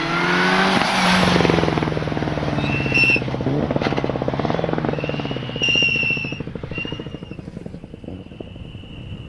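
Mitsubishi Lancer Evolution rally car with a turbocharged four-cylinder engine revving hard as it comes past, with a couple of sharp cracks partway through. It then fades as the car drives off.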